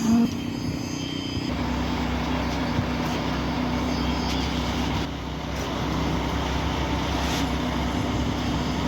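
Heavy diesel machinery, such as a concrete pump or mixer truck, running steadily with an engine hum. A deeper rumble joins about a second and a half in.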